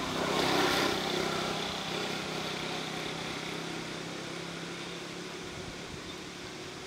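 A motor engine running steadily with a low hum. It swells louder in the first second and then eases off gradually.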